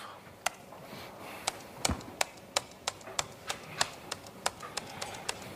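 Laptop keyboard key pressed again and again, about three sharp clicks a second, paging through long terminal output.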